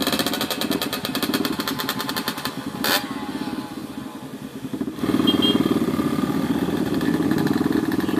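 Motorcycle engines idling with a quick, even pulsing and a short click about three seconds in. About five seconds in, the engine sound gets louder as the motorcycle pulls away.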